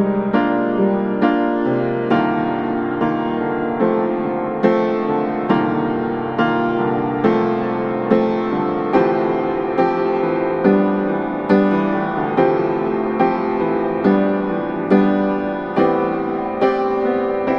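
Slow instrumental piano music: notes or chords struck at an even pace, a little more than once a second, each left to ring and fade.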